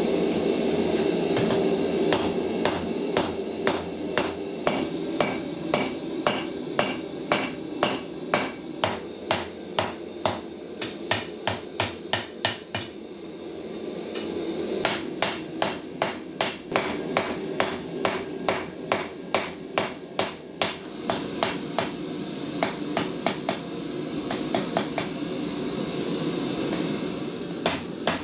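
Hand hammer striking red-hot mild steel flat bar on a steel anvil, runs of ringing blows about three a second with two pauses. Under the blows runs a steady rushing noise from the forge burner, loudest at the start.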